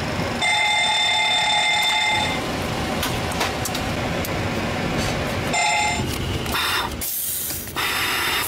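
Boeing 737 cockpit fire warning bell sounding during the fire-detection and cargo-fire test: one ring of about two seconds near the start, then two short rings around six seconds in, over the steady hum of the cockpit's fans and air.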